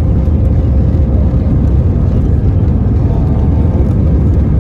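Airbus A319-111 cabin noise: a loud, steady, deep rumble of the jet engines and the airflow around the fuselage.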